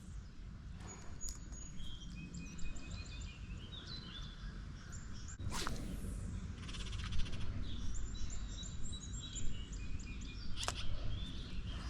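Small songbirds chirping and singing, many short high notes overlapping, over a steady low rumble. There are two sharp clicks, one about halfway through and one near the end.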